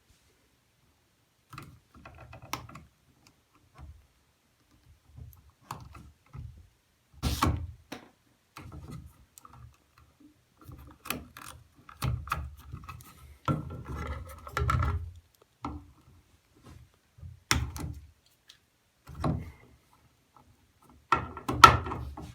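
Hand work on electrical receptacles: irregular clicks, knocks and rattles of tools and hardware being handled, with louder knocks in clusters about a third of the way in, in the middle and near the end.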